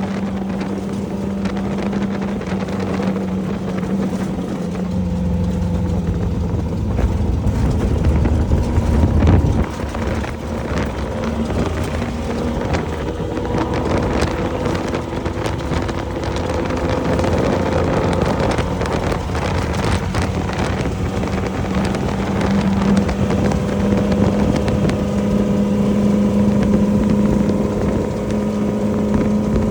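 Off-road race vehicle's engine running under way at a fairly steady pitch, with wind on the microphone and many short knocks and clatters. A deep rumble swells about five seconds in and drops off abruptly near ten seconds.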